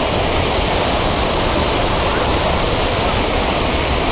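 Waterfall pouring over rocks into a pool, a steady, loud rush of water.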